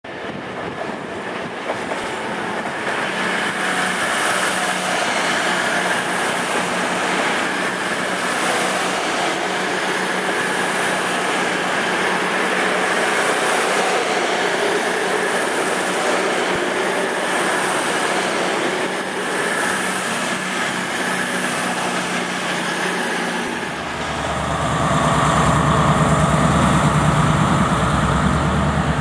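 A CrossCountry Voyager diesel multiple unit passes with a steady engine drone and wheel noise. About 24 seconds in, the sound cuts to the louder, deeper diesel engine of a First Great Western Class 43 HST power car running close by.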